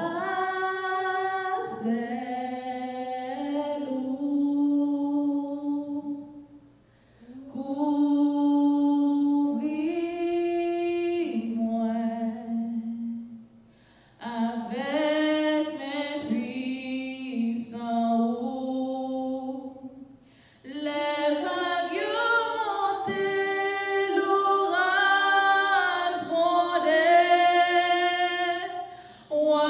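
A woman singing solo and unaccompanied into a handheld microphone, in four long phrases with short breath pauses between them.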